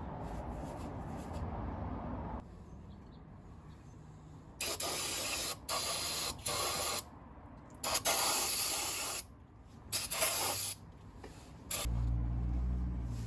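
Aerosol cleaner sprayed into a 4x4 front hub in several short hissing bursts, about five of them. A low hum comes in near the end.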